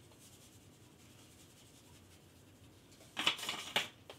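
Near silence for about three seconds, then a short run of quick rasping shakes from a spice shaker.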